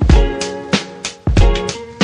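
Background music with a steady drum beat, deep kick thumps and sharp snare hits under sustained pitched notes.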